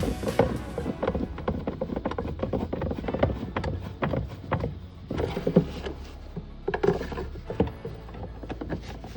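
Irregular knocks and clatter, with a low steady hum in the middle.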